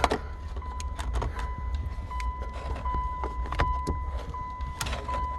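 Scattered light clicks and knocks of car parts being handled at the gear shifter, over a steady, slightly wavering high-pitched tone and a constant low hum.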